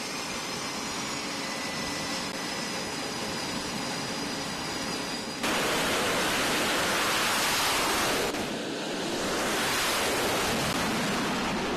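Jet engine noise from an F/A-18 Super Hornet at full power on a carrier's catapult: a steady rushing hiss with a faint high whine, which jumps suddenly much louder about five seconds in, dips briefly around eight seconds and swells again as the jet launches.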